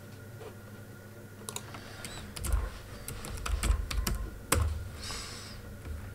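Typing on a computer keyboard: a quick run of key clicks with a few heavier keystrokes, starting about a second and a half in and lasting about three seconds, then a brief soft hiss.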